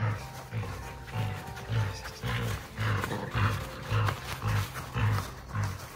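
Dogs growling as they tug hard on a rope toy in a play tug-of-war, over background music with a steady beat about twice a second.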